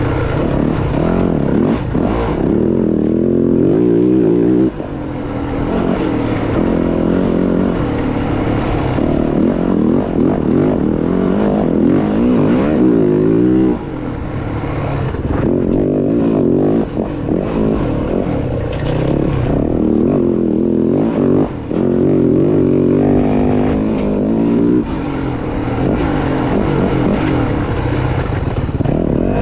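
Dirt bike engine running under changing throttle, its pitch repeatedly rising and falling as it revs and eases off, with brief drops in level a few times.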